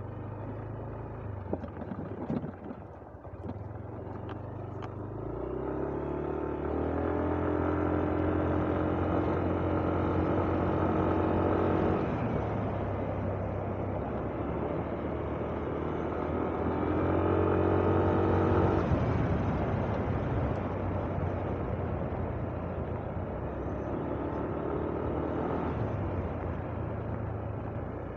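Motorcycle engine running on the road. Its pitch climbs about six seconds in as it speeds up and then holds steady, with a second louder stretch a little past halfway. A few sharp clicks come in the first few seconds.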